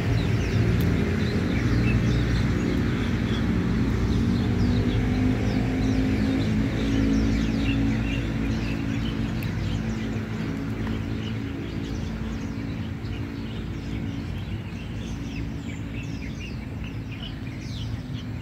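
A vehicle engine's low hum that slowly fades away, with many small birds chirping over it.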